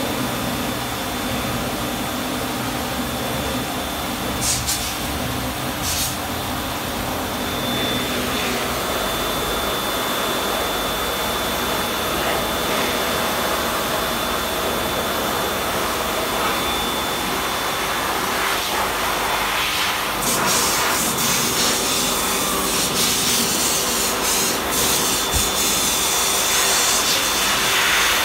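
Electric pet dryer running and blowing air steadily to dry a cat's fur, a rushing noise with a thin high whine, a little louder about two-thirds of the way through.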